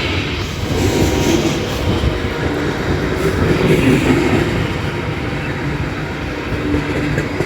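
Heavy Ferromex freight train rolling past, a loud steady rumble of wheels and cars on the rails.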